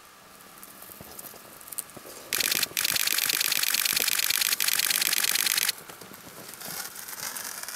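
Single-lens reflex camera shutter firing in a rapid continuous burst for about three seconds, with a short break just after it starts: a high-speed sequence of frames shot of a skier in motion.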